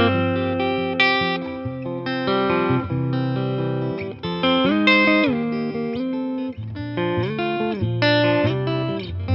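Eastman T185MX semi-hollow electric guitar played clean through a Boss Nextone amp, improvising in a blues-jazz style: chords over a held low bass note and single-note lines, with string bends about five seconds in and again near seven seconds.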